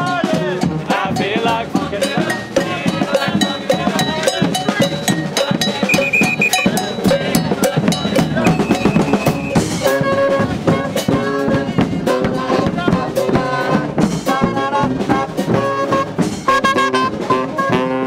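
Street brass band playing live: trombones and saxophones over a driving bass drum and percussion beat. The horns come in with stronger, held chords about halfway through.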